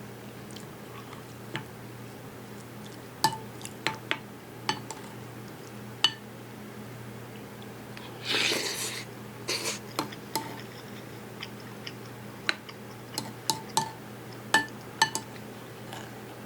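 Eating utensils tapping and clinking against a ceramic dish during a meal, in a dozen or so sharp separate clicks, with one short rasp about eight seconds in. A steady low hum runs underneath.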